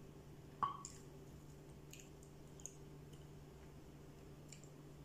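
A metal spoon clinks once sharply against a plate, followed by a few faint clicks and small eating sounds, over a low steady hum.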